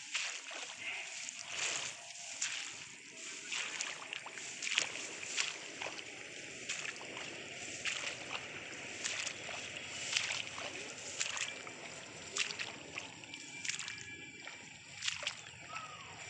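Irregular rustling and swishing as someone walks through a rice paddy, the long rice leaves brushing past, with scattered short crackles.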